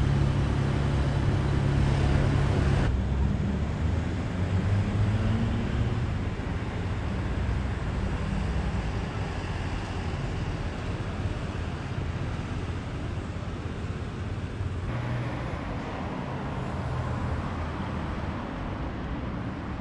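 Road traffic on a city street: a steady hum of car engines and tyres, loudest in the first few seconds.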